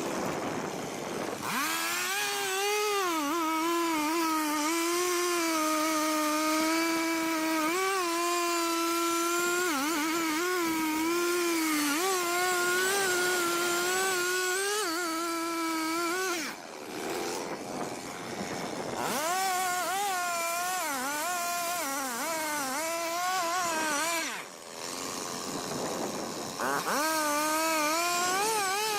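Chainsaw engine running at high revs, its pitch wavering up and down as the chain works through wood, with two short breaks where the pitch drops away, about sixteen and twenty-four seconds in.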